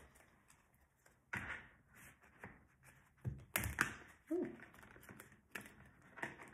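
Tarot card deck being handled and shuffled: a handful of soft, separate taps and slaps of cards, with several in quick succession about three and a half seconds in.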